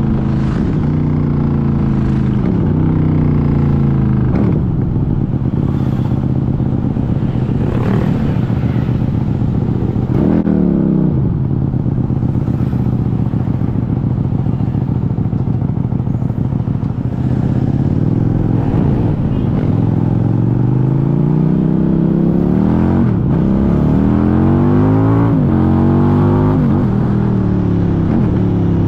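QJMotor SRV400 V-twin motorcycle engine heard from on board while riding. It slows with falling pitch at first and holds a steady cruise through the middle. Near the end it accelerates through several gears, the pitch climbing and dropping back at each upshift.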